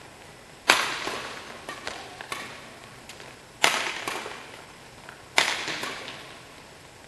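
Badminton rackets striking a shuttlecock during a doubles rally: three loud, sharp hits, each with a long echo in a large hall, with fainter clicks between them.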